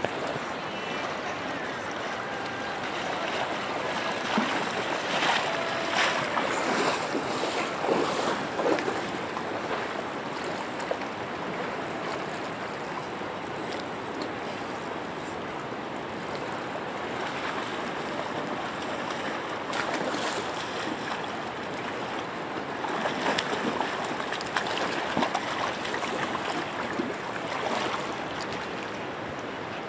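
Steady rushing of a fast-flowing river, with a couple of louder, choppier stretches.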